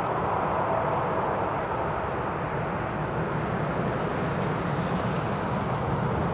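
Boeing 787-8's twin Rolls-Royce Trent 1000 turbofans at takeoff thrust, a steady even jet noise as the airliner climbs away just after liftoff.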